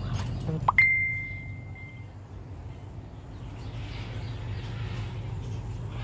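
A short rising whistle, then a single bright bell-like ding just under a second in that rings out and fades over about a second.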